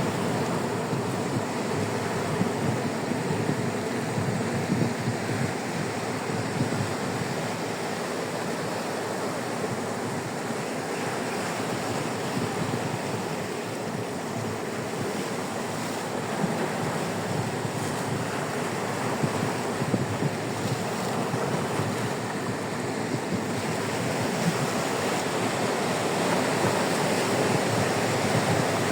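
Sea waves breaking and washing up onto a sandy beach in a steady, continuous surf.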